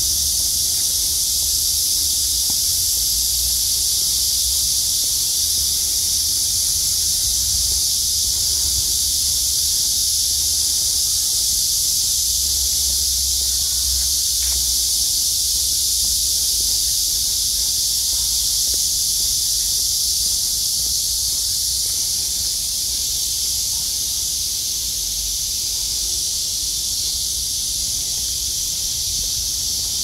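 A chorus of summer cicadas buzzing: one continuous high-pitched drone that holds steady throughout, with a low rumble underneath.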